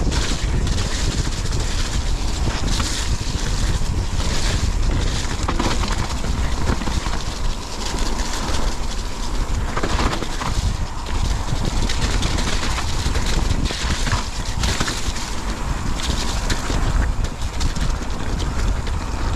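Wind rushing over a GoPro microphone and the tyres of a YT mountain bike rolling fast down a muddy dirt trail, with frequent short rattles and knocks from the bike over bumps and roots.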